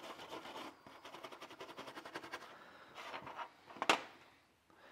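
Brass-bristle brush scrubbing rapidly back and forth over a small metal carburetor fuel-pump plate, working corrosion off. The scrubbing stops about two and a half seconds in, followed by a few softer scrapes and one sharp click near the end.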